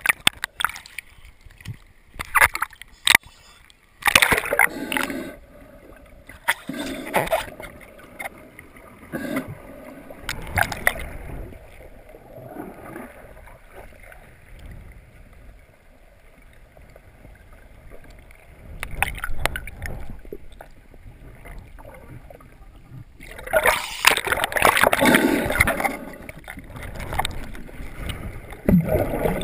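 Seawater gurgling and sloshing around a submerged handheld camera, with irregular splashes and bubbling and a louder spell of splashing near the end.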